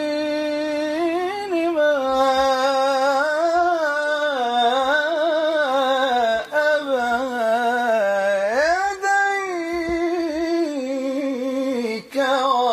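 A male singer's solo voice through a microphone, holding long ornamented notes in a melismatic Arabic devotional line, with a sharp rise in pitch a little past the middle.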